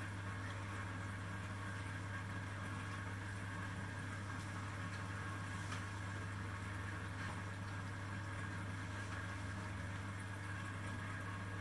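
Reef aquarium equipment running: a steady low electrical hum with a faint hiss above it.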